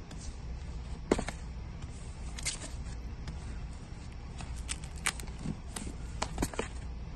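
Vinyl LP records in plastic outer sleeves being flipped through by hand: scattered clicks and taps as the sleeves knock and slide against each other, the loudest about a second in, over a low steady hum.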